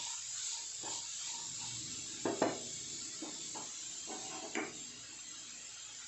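Wooden spatula scraping and knocking against a kadai as grated onion, carrot and cabbage are stir-fried, over a steady soft sizzle. The strokes come in a handful of short scrapes, the loudest about two and a half seconds in, and stop a little past the middle, leaving only the sizzle.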